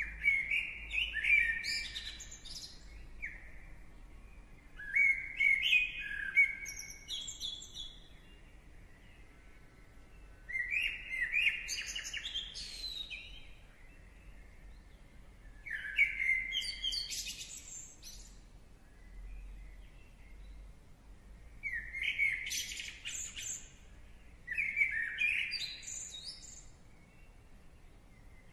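A songbird singing: six short, busy phrases of quick chirps and whistles, each a second or two long, coming roughly every five seconds.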